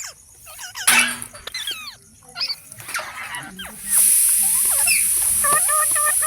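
Green parrots squawking and chirping in short calls that bend up and down in pitch, with a loud call about a second in and a quick run of evenly repeated chirps near the end. A steady high hiss starts suddenly about four seconds in.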